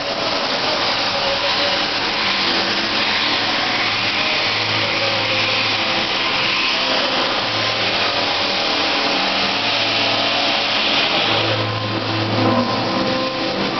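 Electric arc welding on steel: the arc gives a steady, continuous hiss, with a brief dip near the end.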